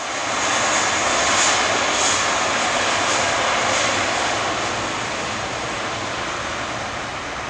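Airbus A320-232's IAE V2500 turbofan engines at takeoff thrust as the jet accelerates down the runway past the listener: loud rushing jet noise with a high whine, loudest about a second and a half in, then slowly fading as it moves away.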